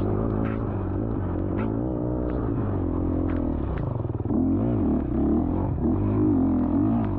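Dirt bike engine revving up and down under constant throttle changes, with a short drop-off about four seconds in before it pulls again. Several sharp clacks and knocks from the bike over the rough ground cut through it.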